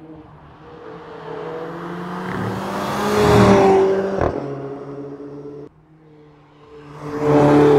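Mercedes-Benz CLA 45 AMG's turbocharged 2.0-litre four-cylinder at high revs as the car passes at speed, swelling to a peak about three and a half seconds in, with a single sharp crack just after. The sound cuts off abruptly, then a second high-speed pass swells up near the end.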